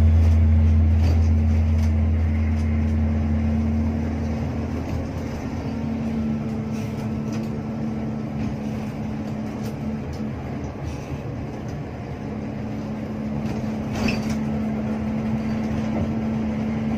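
Cabin sound of a Hino RK8 R260 bus on the move: its diesel engine drone and road noise run steadily, easing a little in the middle and picking up again. There are a couple of sharp rattles or knocks near the end.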